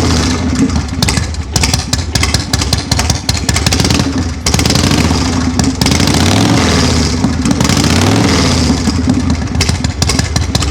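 Harley-Davidson Shovelhead V-twin running through a shotgun exhaust, with a deep thud to its firing pulses. It is blipped up and back down a couple of times around the middle. The exhaust seems to be short of back pressure, and the owner thinks it needs baffles.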